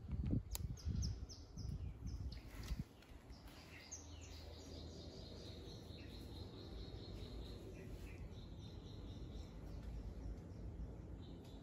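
Low rustling and handling noise with a sharp click about half a second in, then from about three seconds in a quieter room with birds chirping in repeated runs of short, falling chirps.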